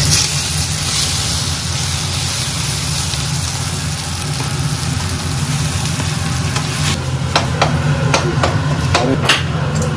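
A steady, motor-like hum with hiss, loudest in the first second. From about seven seconds in, a run of sharp clinks and knocks, like kitchen utensils, sounds over it.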